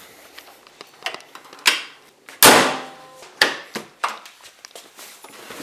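A string of knocks and clicks, with one loud bang about two and a half seconds in that rings out briefly.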